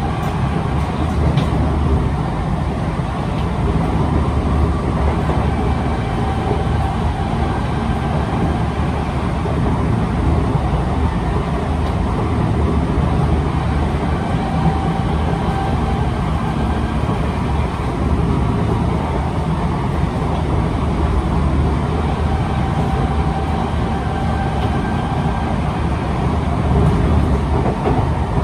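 Kawasaki C151 MRT train running at speed, heard from inside the car: a steady rumble of wheels on rail. Severe flat spots on this car's wheels add a regular thudding.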